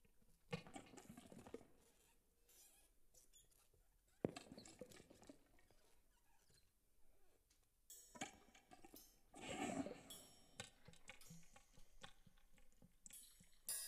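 Sparse, quiet textural sounds from a live experimental music performance: irregular rustling, scraping and light tapping in short bursts, the strongest about half a second, four seconds and nine and a half seconds in.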